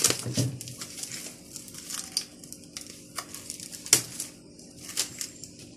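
Plastic cling film crinkling and crackling as gloved hands press and smooth it around a glass bowl, with one sharp snap about four seconds in.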